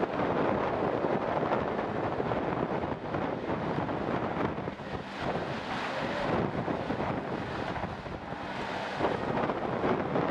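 Wind buffeting the microphone in uneven gusts, with the rush of breaking surf beneath.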